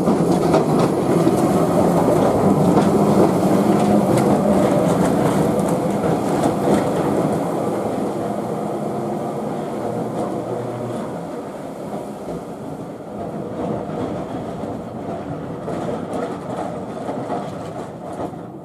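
Melbourne W6-class tram running along the track, its steel wheels rolling and clattering over the rails, loudest at first and slowly fading as it draws away.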